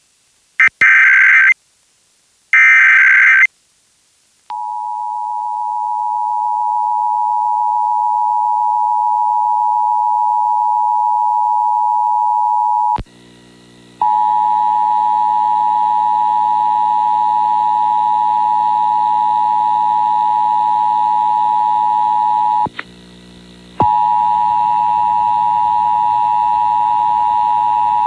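Emergency Alert System monthly test on FM radio: the last two raspy data bursts of the SAME header, then the steady two-tone EAS attention signal starting about four seconds in. The tone is broken twice by a click and a drop of about a second, and after the first break a low hum runs under it.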